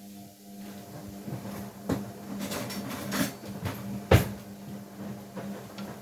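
A machine motor starts up with a steady hum, with irregular clunks and knocks over it, the sharpest a little past four seconds in.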